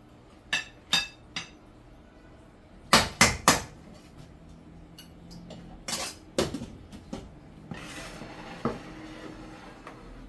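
Metal serving spoon clinking and knocking against a stainless steel pot and plates as rice and peas are dished out: a few light clinks, then three loud knocks close together about three seconds in, and more clinks later.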